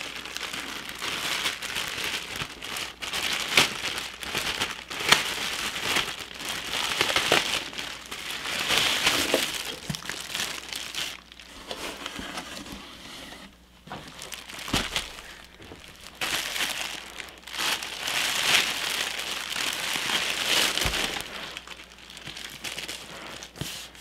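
Clear plastic shipping bag crinkling and rustling as a purse is pulled from a cardboard box and unwrapped, in irregular stretches with a few sharp crackles and short pauses.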